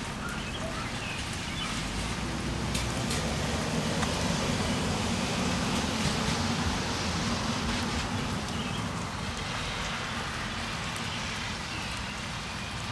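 Steady rain falling on foliage: a constant hiss with a low rumble underneath, and a few soft clicks of drops about three seconds in.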